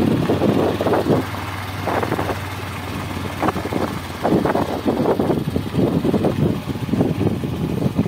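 Motorcycle riding along, its engine a steady low hum under uneven rushing of wind on the microphone.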